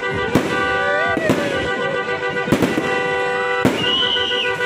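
Aerial fireworks bursting close overhead, about five sharp bangs at uneven intervals, over steady background music with sustained tones.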